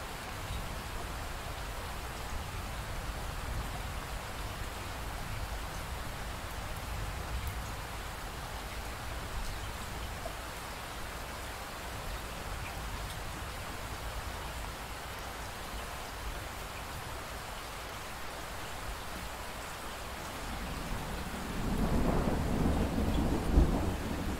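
Steady rain falling, with a long low rumble of thunder swelling in near the end, the loudest part.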